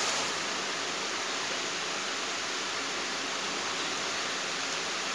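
Chaoba 2800 hair dryer running steadily, blowing air with a constant, even hiss.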